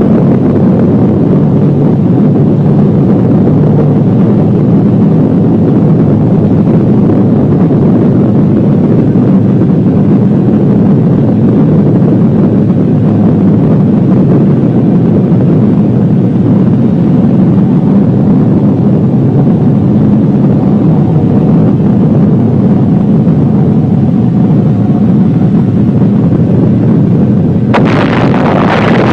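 Steady, loud rumbling roar of an atomic-bomb blast on an old film soundtrack, running on without separate bangs. Near the end a higher, hissing rush joins in.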